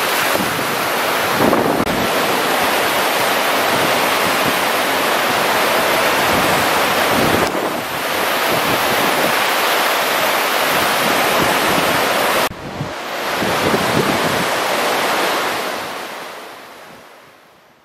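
A river in spate rushing and churning around brick bridge piers: a loud, steady roar of floodwater, with wind buffeting the microphone. It fades out over the last two seconds or so.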